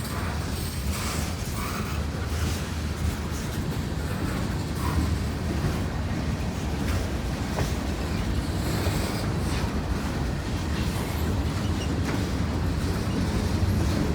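Norfolk Southern freight train's cars rolling past: a steady rumble of steel wheels on the rails.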